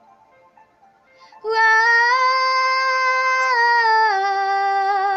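Pop song ending: after a quiet pause of about a second and a half, a high singing voice holds one long wordless note that steps down in pitch partway through.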